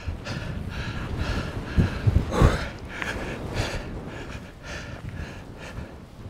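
Strong gusting wind buffeting the camera microphone, with the strongest blast about two seconds in, over a hiker's heavy breathing after a long climb.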